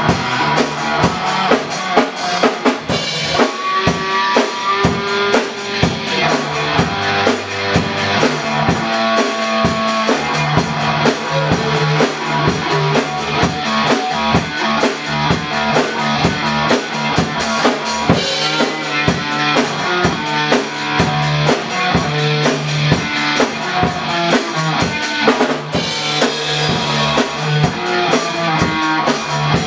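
Electric guitar, bass guitar and drums playing together live in a jam, with a steady driving beat.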